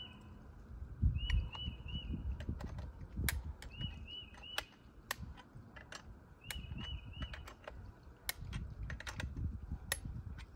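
Irregular sharp clicks and knocks of hand work on an Alaskan chainsaw mill being set to a new cutting height, with no saw running. A short high chirp repeats in quick runs of three.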